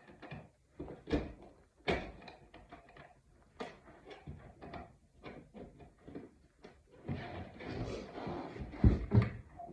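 Spline being pressed into the channel of a screen door frame with a spline roller tool: irregular knocks, clicks and scraping. Sharper knocks come about one and two seconds in, with a denser stretch of rubbing and another sharp knock near the end.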